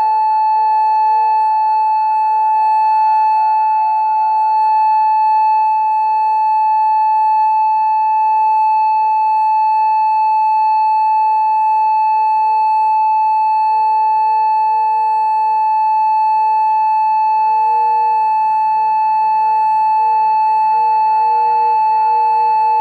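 Homemade mini electronic siren modelled on an ACA Alertronic AL-1000, driven by a Federal Signal SiraTone controller through an amplifier, sounding a steady single-tone 850 Hz alert at full volume. The tone holds one even pitch and level throughout.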